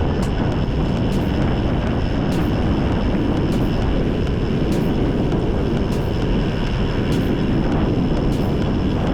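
Wind rushing over the microphone of a cyclist's camera while riding on a gravel road: a loud, steady roar, with faint ticks about once a second.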